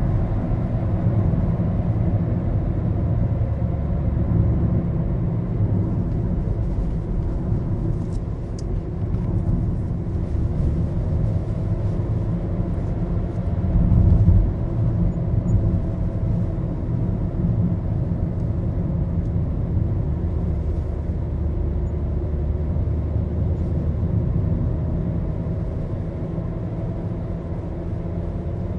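Road noise inside the cabin of a moving Maruti Suzuki Baleno: a steady low rumble of tyres and engine, swelling briefly about halfway through.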